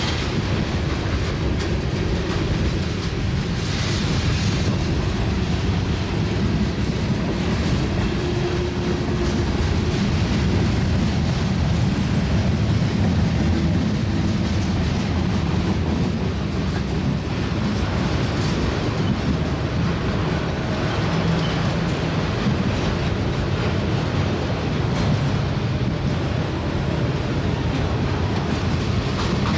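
Freight train cars rolling past on the main line: tank cars, boxcars and autoracks. A steady low rumble of steel wheels on rail that holds at an even level throughout.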